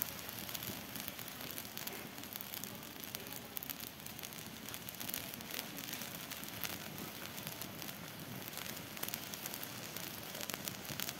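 Wood fire crackling with many sharp pops beneath a wide pan of goose meat boiling in broth, over a steady bubbling hiss.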